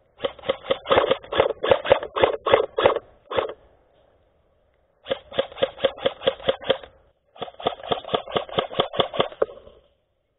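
Airsoft rifle firing rapid shots, about five or six sharp cracks a second, in three bursts with short pauses between them.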